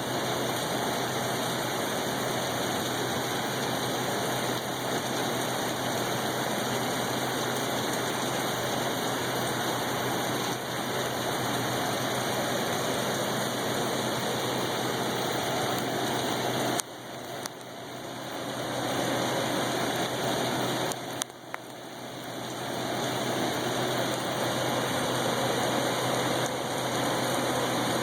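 Steady rain falling, an even hiss that drops away briefly twice, after about seventeen and twenty-one seconds, and then builds back.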